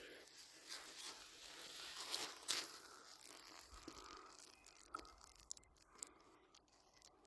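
Rustling and crunching of leaves and brush, with scattered crackles, dying away over the last few seconds.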